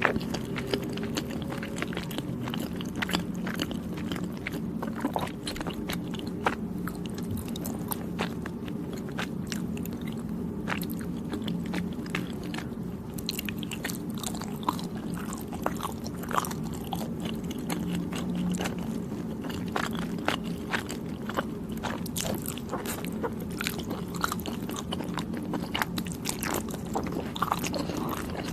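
A person chewing soft, chewy Thai desserts, with many small clicks of biting and chewing.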